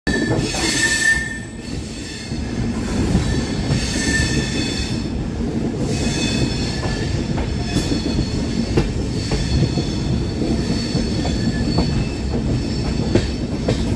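Passenger train running through a curve, heard from on board: a steady rumble of wheels on the rails, with high-pitched wheel squeal from the curve coming and going, loudest about a second in.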